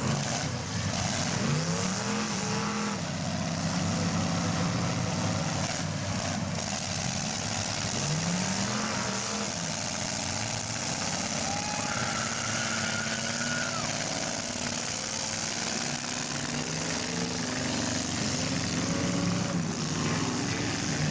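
Several demolition derby car engines running and revving, their pitch rising and falling as the cars accelerate and back off.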